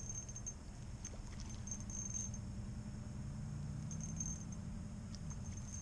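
Insects trilling at a high, steady pitch that comes and goes, over a low steady hum.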